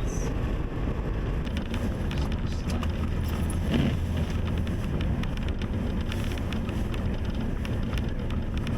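Steady low rumble of a car driving on a snow-covered highway, heard inside the cabin, with scattered light clicks and one brief higher sound a little under four seconds in.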